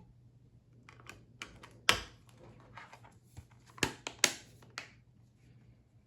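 Hands handling a steelbook 4K Blu-ray case and its packaging: a run of clicks, taps and scrapes, with sharp snaps about two seconds and four seconds in.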